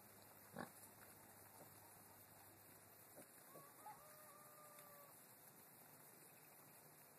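Faint outdoor quiet, with a short soft knock near the start and then one faint rooster crow, a single held call of about a second and a half, a little past halfway.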